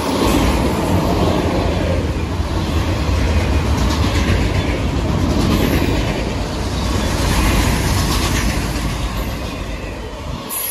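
CSX freight train of autorack cars rolling past close by: a steady loud rumble of steel wheels on rail, with wheel clatter that swells every couple of seconds as the cars go by.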